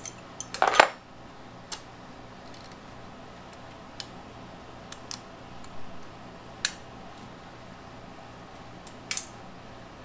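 Metal clinks and ticks of a wrench and fittings as hands unfasten the throttle cable and choke linkage on a Kawasaki KLR650's Keihin CVK carburetor: a quick cluster of clinks about a second in, then a few scattered single ticks.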